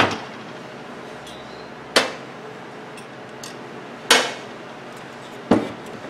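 Four sharp metallic knocks, each with a short ring, as a microwave oven magnetron that has just been removed is handled and bumps against metal. The knocks come roughly every one and a half to two seconds.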